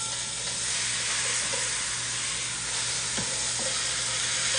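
Beef pot roast searing in hot fat in an enameled cast-iron Dutch oven: a steady sizzle, with one light tap about three seconds in.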